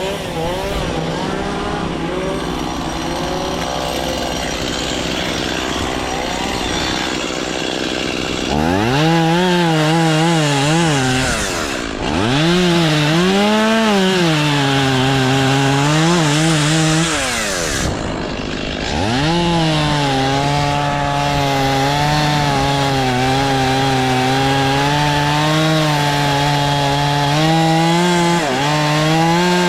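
A small engine running hard in long stretches, its pitch wavering, dipping and climbing again as if under load. It runs lower and rougher for the first several seconds, then speeds up about a third of the way in. It drops briefly twice before settling into a long steady high run.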